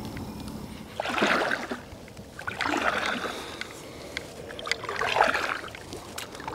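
Kayak paddle strokes: three swishing splashes as the paddle blades dip and pull through calm lake water, roughly two seconds apart.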